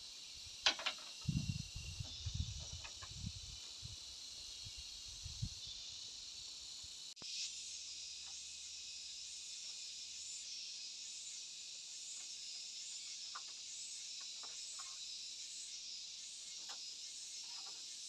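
Steady high chorus of insects in the surrounding forest. Over it, in the first few seconds, a sharp knock and then a run of dull thumps as bamboo poles are handled and knocked on a bamboo roof frame; later only a few faint clicks.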